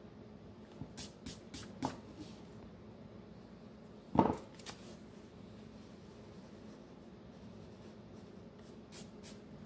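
Quiet drawing and handling sounds: a pencil and eraser working on a sketchpad, with a few light clicks and taps and one louder knock on the desk about four seconds in.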